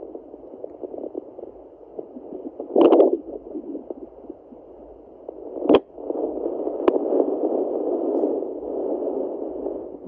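Sonoline B fetal Doppler's speaker giving a steady pulsing whoosh from a pregnant Yorkie's belly, a heartbeat the unit reads at about 120 beats per minute. It is broken by loud scraping crackles about three seconds in and again near six seconds, as the probe shifts, after which the whoosh is louder.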